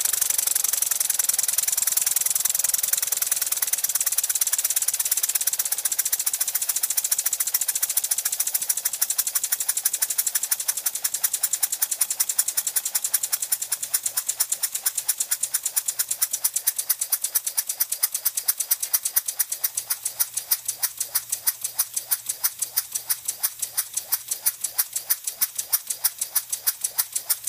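Small homemade wobbler (oscillating-cylinder) steam engine running on compressed air: a rapid, even puffing of exhaust over a hiss of air, its beat slowing gradually to about four puffs a second near the end.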